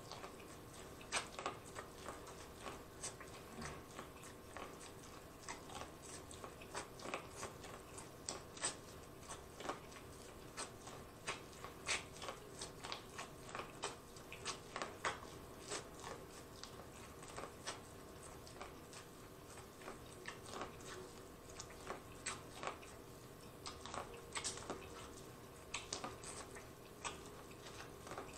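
Close-miked bites into corn on the cob: an irregular run of sharp, crisp crunches as kernels are stripped from the cob with the teeth, thinning out for a few seconds midway.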